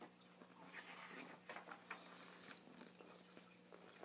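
Faint rustle and handling of a large picture book as a page is turned, with a few soft paper ticks, over a low steady hum.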